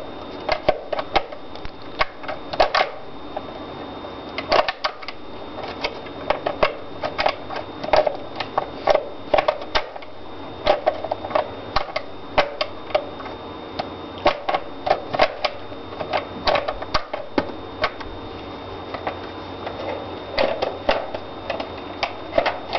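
Irregular clicks and knocks of an airsoft P90's gearbox being wiggled and worked into the gun's receiver shell, hard parts rattling and bumping against each other.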